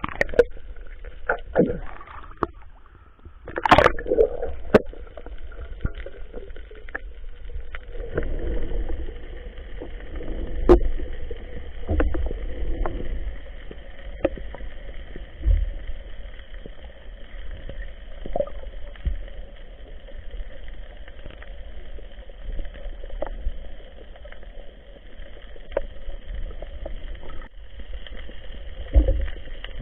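Muffled underwater sound heard through an action camera's waterproof housing on a freedive: a steady rush of water with scattered sharp clicks and knocks, several loud ones in the first few seconds.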